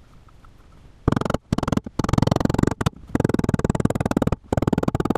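A rasping scrape repeated in about six strokes, each under about a second to a little over one, from hand-tool work on a plywood panel.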